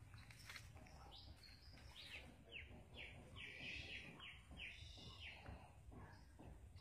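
A bird calling faintly: a run of short notes, each sliding down in pitch, about two a second for around four seconds, over low steady background noise.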